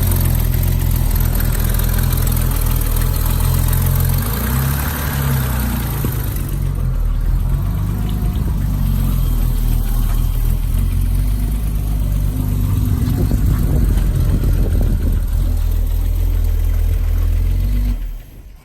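BMW E24's straight-six engine idling steadily, which the owner takes for a slight vacuum leak. The engine sound cuts off suddenly near the end.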